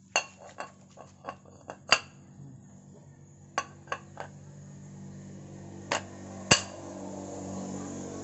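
Irregular sharp metallic clinks and taps, about a dozen, from the steel spur gears and parts of a Mahindra rotavator's side gearbox being handled, the loudest about two seconds in and again near six and a half seconds. A low steady hum builds in the background over the second half.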